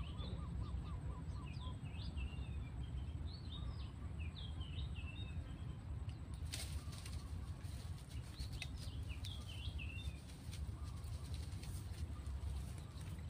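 Birds chirping and calling steadily over a low steady rumble, with a quick run of repeated notes in the first second. About six and a half seconds in, a stretch of crackling rustle joins them.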